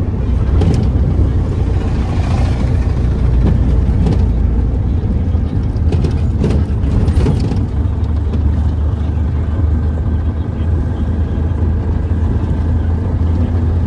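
Cabin noise of a Tata Magic passenger van on the move: a steady low engine drone with road noise and wind rushing in at the open window, and a few short knocks a little after the start and around the middle.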